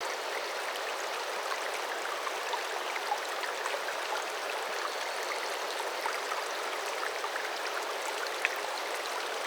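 Water running in a stream: a steady rush with small splashes and drips scattered through it.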